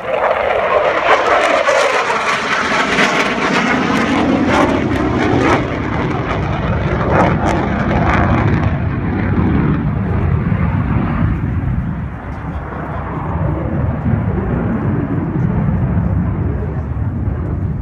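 F-16 fighter jet making a loud pass, its jet roar coming on suddenly with a sweeping, phasing whoosh over the first few seconds, then fading to a low rumble about halfway through.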